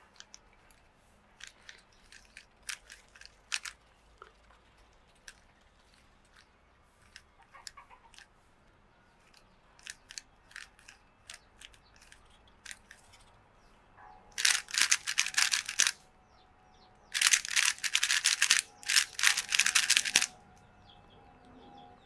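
Plastic 3x3 speedcube being turned by fingertricks: scattered single clicks of slow layer turns, then, about two-thirds in, two runs of rapid, loud clacking as an algorithm is executed at speed.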